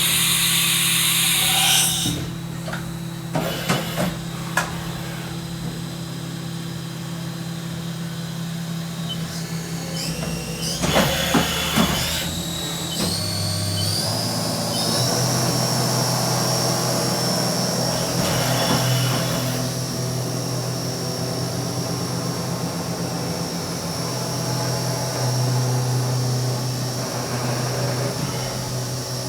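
Haas VF-1D CNC vertical machining center running with a steady low hum. There is a loud rushing burst near the start and a few clacks and knocks. From about ten seconds in, a high whine climbs in steps and then holds steady, the spindle spinning up to speed.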